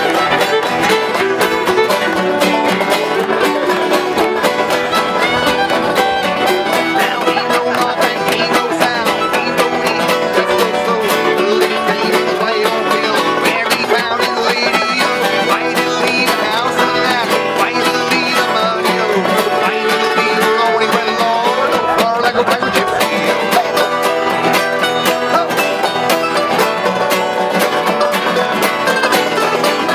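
Background music in a bluegrass style, with plucked strings such as banjo and guitar, and fiddle, playing steadily throughout.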